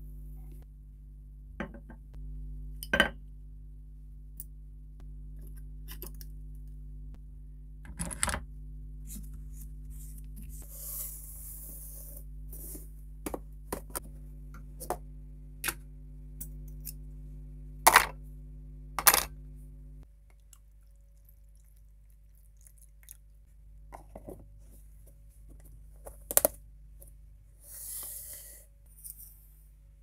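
Small rusty metal knife parts clinking as they are handled and set down on a hard floor and in a plastic box, with several sharp clinks. Under them a steady electrical hum, from the power supply of the electrolysis rust-removal bath, stops about two thirds of the way through.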